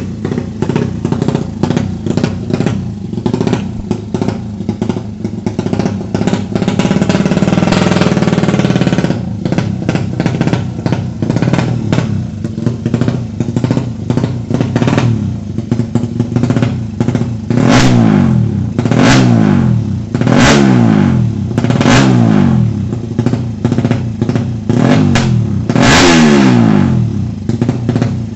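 A Suzuki Satria FU drag-bike engine bored to 200 cc, revving hard with a crackling, clattering exhaust. From about two-thirds of the way through, the throttle is blipped again and again, about every second and a half, and each rev falls away sharply.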